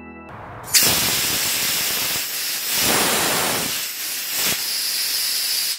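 CO2 cold gas thruster firing, a loud gas-jet hiss that bursts on about a second in. Its strength rises and dips several times as the servo valve throttles the flow.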